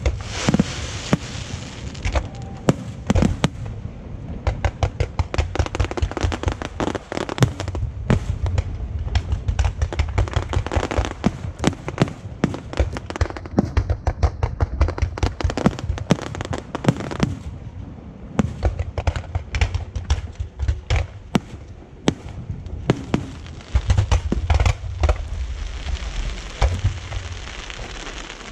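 Fireworks display going off continuously: a dense run of sharp cracks and crackling over deep booms from the bursting shells, heaviest in the low booms a little before the end.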